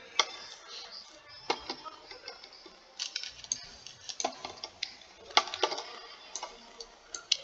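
Irregular sharp clicks of a computer mouse and keyboard, some coming in quick pairs or small clusters.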